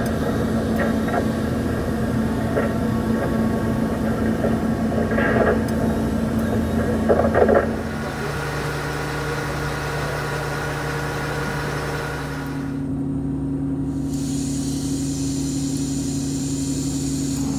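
KATO rough-terrain crane's diesel engine running steadily, heard from inside the cab, with a few sharp clicks. About 8 s in the sound cuts to the engine idling at a different, steadier pitch. Near the end a high steady hiss sets in, from a small canister gas stove burning on the cab floor.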